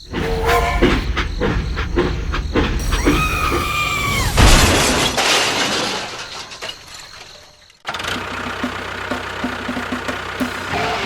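A loud crash with shattering about four and a half seconds in, dying away over about three seconds, over a low rumble; background music starts near the end.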